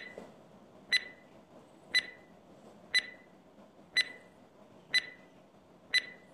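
Countdown timer sound effect ticking once a second: seven short, even clicks, each with a brief high ring.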